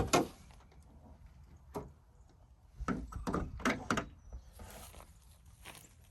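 Hand tools on metal during strut removal: a sharp knock at the start, a single click about two seconds in, then a quick cluster of knocks and clicks about three to four seconds in.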